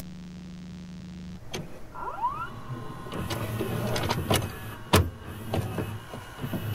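Glitching body-camera audio: a steady low electrical hum, then a brief rising whine about two seconds in, and scattered crackles and clicks of signal break-up, the sharpest about five seconds in.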